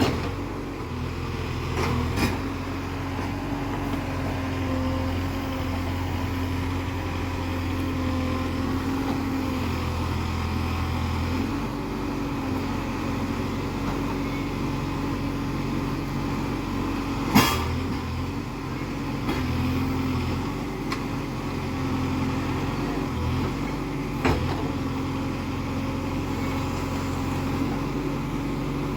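Case 851EX backhoe loader's diesel engine running steadily, its note shifting now and then as the machine works. Three sharp knocks stand out, about two seconds in, about halfway through and a little later, the one in the middle the loudest.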